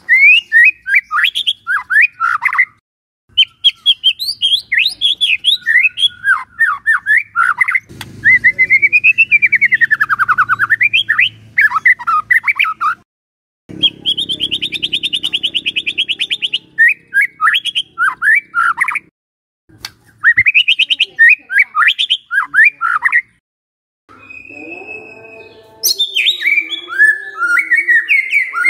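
White-rumped shama (murai batu) singing loudly in phrases of rapid, sliding whistled notes. A fast buzzy trill comes around the middle, and the phrases are broken by brief pauses.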